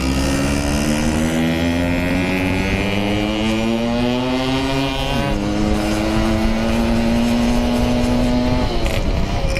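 Yamaha RX King's 135cc two-stroke single-cylinder engine through a Packing Power aftermarket exhaust, its pitch rising steadily under acceleration. About five seconds in the pitch dips briefly at a gear change, then climbs again before the throttle closes near the end.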